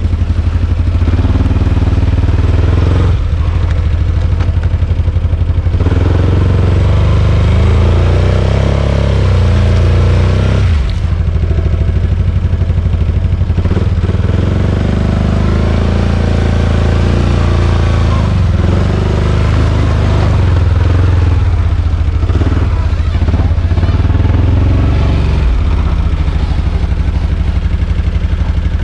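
Four-wheeler (ATV) engine running loudly and steadily while being ridden, its pitch rising and falling a little with the throttle.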